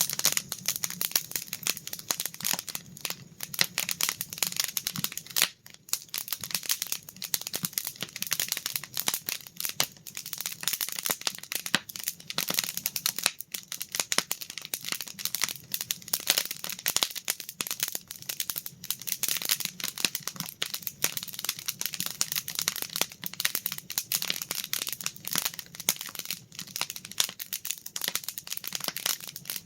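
Wood campfire crackling, a dense, continuous run of small irregular snaps and pops.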